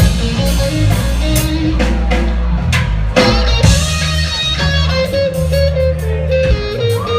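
Live reggae band playing an instrumental passage: electric guitar holding a lead note, with a bend near the end, over bass guitar and a drum kit.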